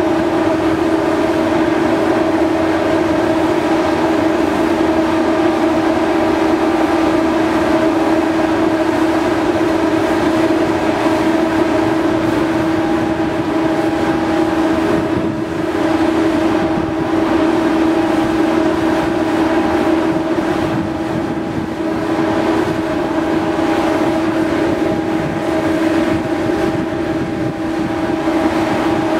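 Ferry MV Salish Eagle's onboard machinery running in a loud, steady drone with a constant hum of several steady tones, heard from the deck as the vessel moves.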